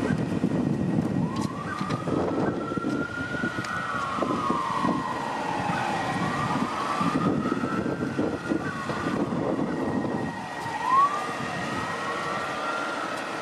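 Emergency vehicle siren wailing, slowly rising and falling several times, with a sharp quick rise about eleven seconds in, over a low rumble that eases off near the end.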